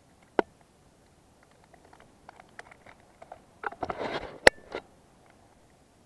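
Metal clicks and clinks of carabiners and a rope descending device being handled on a climbing harness, with the rustle of rope about four seconds in and a sharp metallic click in the middle of it.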